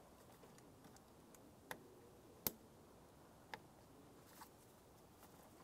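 A few faint, sharp plastic clicks and ticks, the loudest about two and a half seconds in, from wiring harness connectors being handled and pushed into the sockets of a new airbag clock spring; otherwise near silence.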